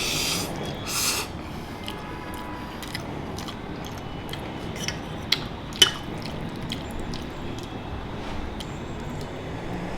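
A person slurping spicy instant ramen noodles in two short slurps, then chewing with many small wet mouth clicks and smacks, two sharper clicks about five and six seconds in.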